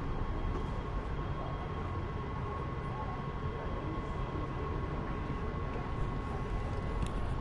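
Los Angeles Metro Rail train running, a steady low rumble with a constant high tone over it and a brief tick near the end.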